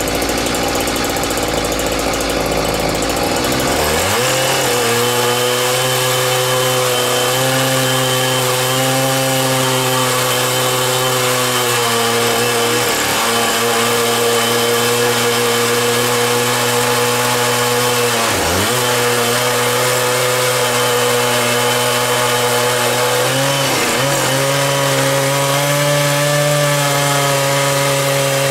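Husqvarna 365 two-stroke chainsaw ripping lengthwise through an oak log on a Logosol Timberjig mill. It runs at a lower, rougher speed for about four seconds, then revs up to full throttle and holds a steady high note under load, dipping briefly in pitch three times.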